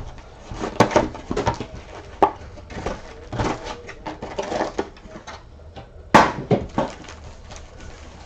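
Hands opening a cardboard box of trading card packs and handling the wrapped packs: irregular sharp clicks, knocks and crinkling rustles, the loudest about a second in and just after six seconds.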